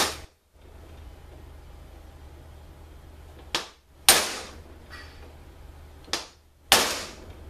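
Hammer blows on a bushing driver, driving a bushing into a Turbo 400 (TH400) automatic transmission part: sharp metallic strikes with a brief ring. They come in two pairs, a lighter tap then a harder hit, one pair about halfway through and one near the end.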